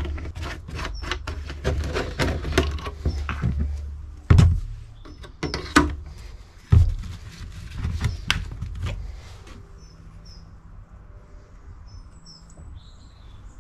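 Plastic fuel containers, a mixing bottle and a funnel being handled on a workbench: a run of clicks and knocks, with a few louder knocks in the middle. Birds chirp faintly near the end.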